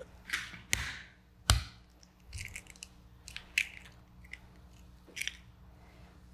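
Raw eggs being cracked by hand and their shells broken open over a small glass bowl: several sharp cracks and crunching crackles of shell, the loudest crack about a second and a half in.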